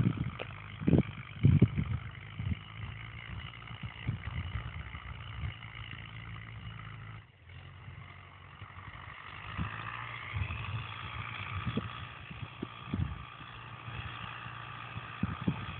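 MTZ-82 tractor's four-cylinder diesel engine running steadily under load, pulling a cultivator. Wind buffets the microphone with low thumps, heaviest in the first couple of seconds.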